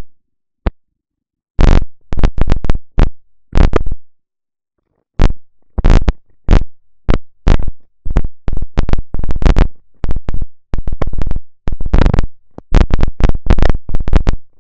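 Faulty microphone giving loud bursts of crackling static that cut in and out, with dead silence between them. The bursts are short and irregular: a few scattered ones at first, then many close together from about five seconds in.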